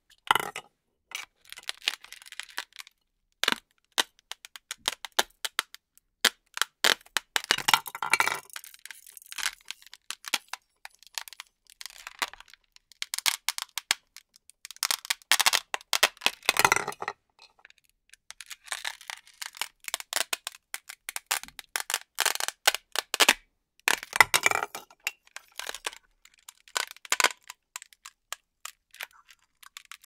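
Hook-and-loop (velcro) fastener ripping as toy plastic fruits are cut apart with a knife and pulled off a velcro catch disc: runs of short crackling rips, with several longer tearing stretches.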